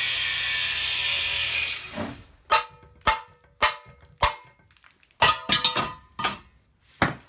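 An angle grinder cutting through the old spring perches on a Dana 30 axle tube, running steadily and then stopping abruptly just under two seconds in. It is followed by about ten sharp metal knocks, irregularly spaced, some ringing briefly.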